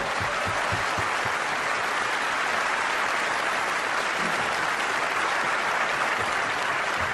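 Audience applauding steadily and at length, dying down near the end.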